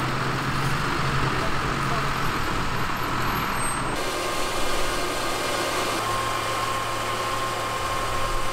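Fire engine's diesel engine running in a steady drone, with a steady higher tone over it. About four seconds in the sound changes abruptly to a similar steady engine drone.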